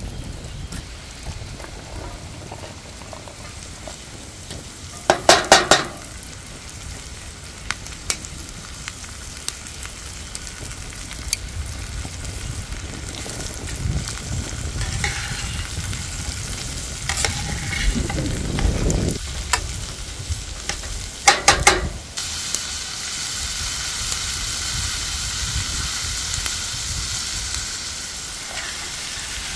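Food sizzling, with two short runs of rapid knocks, one about five seconds in and another about twenty-one seconds in. From about twenty-two seconds on the sizzle turns louder and hissier.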